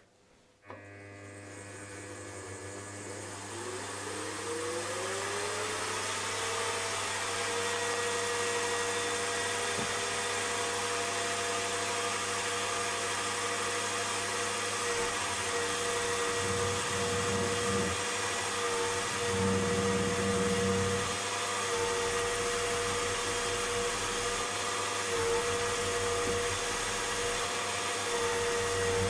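Milling machine running up to speed, its motor whine rising in pitch over the first few seconds and then holding steady, as an end mill cuts into a metal engine frame.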